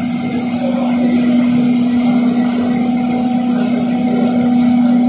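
Hydropower turbine test rig running: a steady machine hum from its pumps and turbine, over the rush of water pouring through the storage tank. It grows slightly louder near the end.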